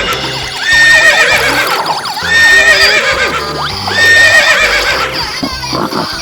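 Horse whinny sound effect repeated three times, about every second and a half, over background music.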